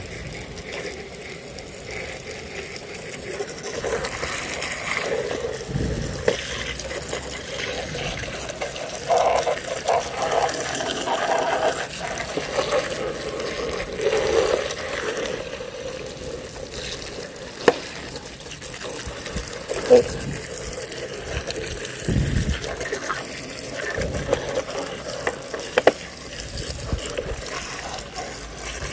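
Water running and splashing as a mud-covered toy vehicle is washed clean, with a few sharp knocks.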